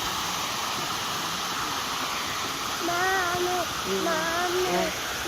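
Steady rushing noise like running water, with a high, wavering voice singing or calling briefly from about three seconds in.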